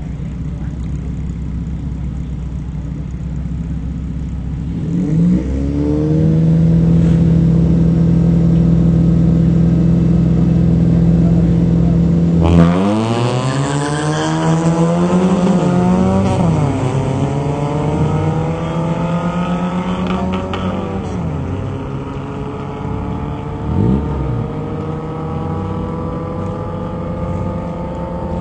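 Drag racing car engines revved and held high on the start line, then launching hard about halfway through. The engine note climbs steeply through the gears, dropping briefly at each shift, as the cars accelerate away down the quarter-mile strip.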